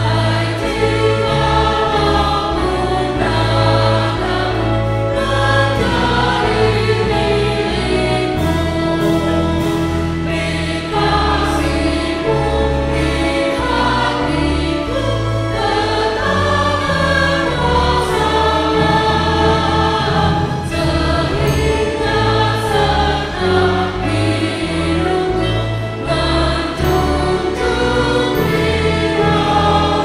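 A large church congregation singing a hymn in Indonesian, led by a few singers on microphones. Sustained low instrumental accompaniment runs underneath.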